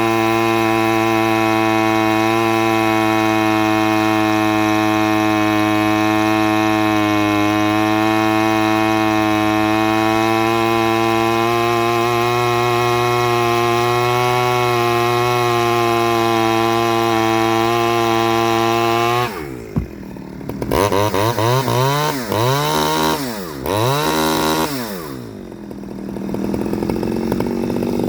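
Stihl 009L two-stroke chainsaw on its standard carburettor, held at high, steady revs for most of the time. Near the end the throttle is let off, blipped up and down several times, and the engine settles toward idle.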